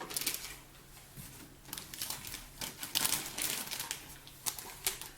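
Packaging being handled and rummaged through: irregular rustling and crinkling with quick small clicks and taps.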